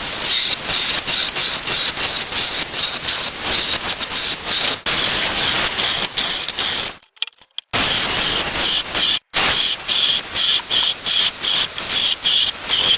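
HYCHIKA CS18D brushless cordless mini chainsaw cutting through wood: a steady high-pitched motor-and-chain whine over a rapid rasping pulse of about three to four a second. It cuts out suddenly twice past the middle.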